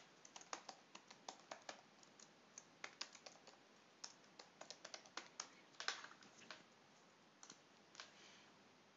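Faint typing on a computer keyboard: irregular keystrokes for about seven seconds, then a couple of separate clicks near the end.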